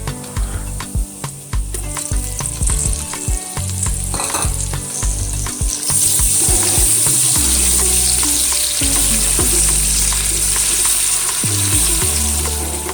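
Food sizzling in hot oil in a pan while a spoon stirs and knocks against it, making many short clicks. About six seconds in, the sizzle turns much louder and steadier.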